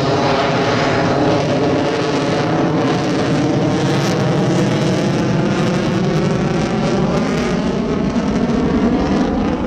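Lockheed Martin F-22 Raptor's twin Pratt & Whitney F119 turbofan engines running loud as the jet manoeuvres overhead, a steady jet noise whose pitch slowly shifts as it moves.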